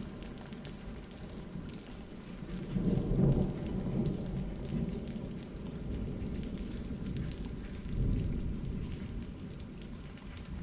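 Steady rain with low rolls of thunder, the loudest swelling about three seconds in and another near eight seconds.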